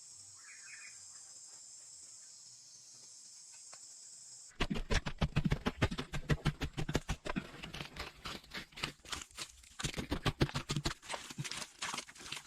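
Insects trilling steadily in the background, with a brief bird chirp. About four and a half seconds in, it cuts to loud, rapid, irregular knocking and scraping from close handwork.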